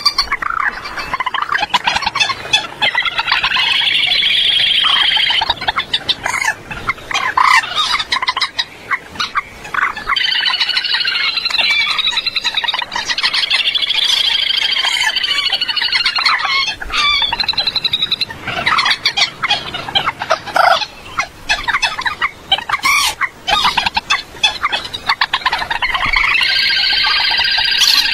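Common moorhens calling over and over: several long runs of rapid, stuttering calls about three seconds each, with short clucking calls in between. This is a lure recording of the kind played to draw wild moorhens into nets at night.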